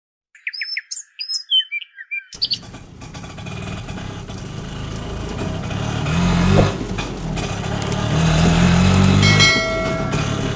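Short chirping, whistling glides for about two seconds, then a small engine running steadily that grows gradually louder, peaking around six and nine seconds in.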